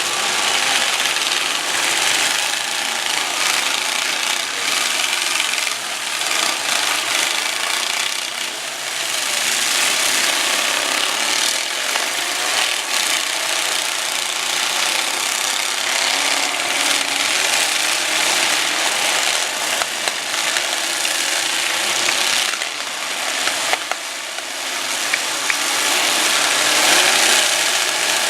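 Demolition derby trucks' engines running and revving together in a loud, continuous din, with a few sharp knocks.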